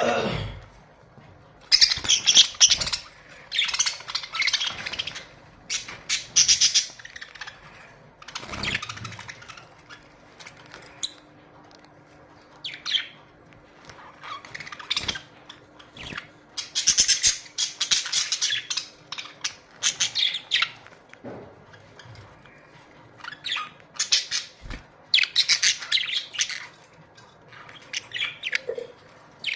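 A colony of budgerigars chattering and warbling in bursts of a second or two at a time, separated by short lulls.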